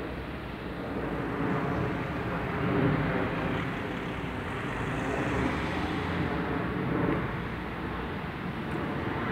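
Road traffic on an urban street: vehicles driving past, a continuous rumble that swells and fades a couple of times.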